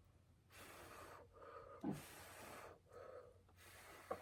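A woman blowing air out through her mouth in three long puffs, each lasting about a second.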